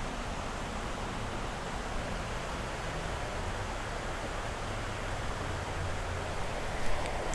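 Creek water rushing over shallow rapids, a steady even rush.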